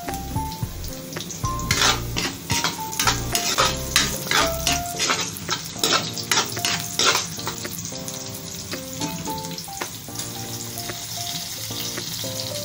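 Garlic, ginger and green chili sizzling in oil in a wok, with a metal ladle stirring and scraping against the pan in a run of strokes through the middle. Background music with short melodic notes plays underneath.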